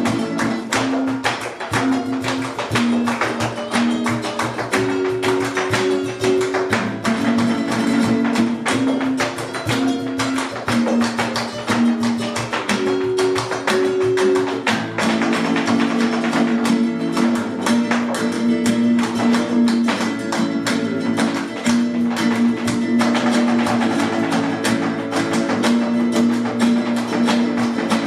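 Live flamenco music in the caña form: guitar playing with held melodic notes over it and a dense run of sharp percussive strikes.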